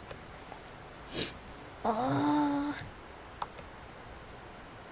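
A person's voice making wordless sounds: a short breathy hiss about a second in, then a held vocal tone of steady pitch lasting just under a second. A small click at the start and another a little later.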